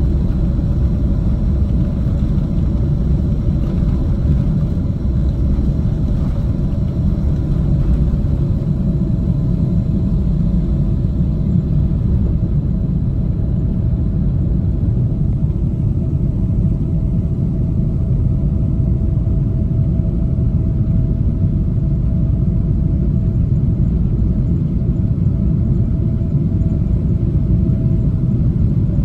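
Jet airliner cabin noise at takeoff power through the takeoff roll, liftoff and initial climb: a loud, steady low rumble with a faint steady whine over it.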